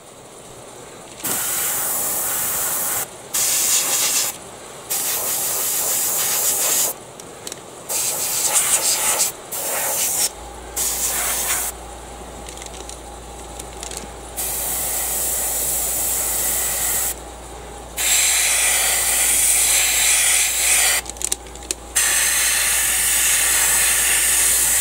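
Airbrush spraying paint in repeated bursts of hiss, each lasting a second to a few seconds, stopping and starting as the trigger is pressed and released.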